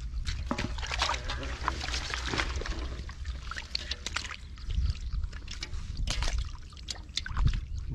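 Hands splashing and groping in shallow muddy water: irregular small splashes, drips and sloshes. A catfish is dropped into a basin of water right at the start.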